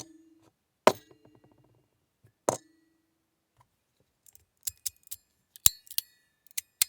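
Tuning-fork fidget slider (Sound Emperor) being slid and snapped: sharp metal clacks, each followed by the small tuning forks ringing on. Two strikes with a longer ring come first, then a quicker run of clicks with higher ringing tones.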